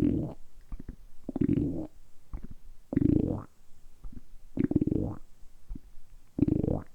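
A human stomach rumbling in a regular run of low gurgles, about one every second and a half, with small pops and clicks in between. The rumbles are made deliberately by working the abdominal muscles.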